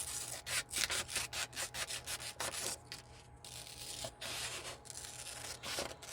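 Sheet of paper being cut for a template: a quick run of short crisp cutting strokes, about three a second, giving way to a softer steady scraping of paper.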